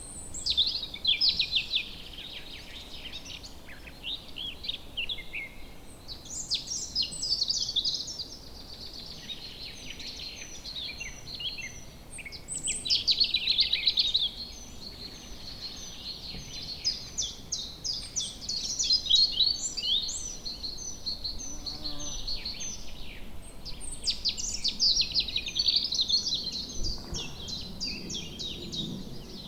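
Woodland birdsong: several birds chirping and trilling at once in a dense, continuous chorus, over a faint steady background hiss.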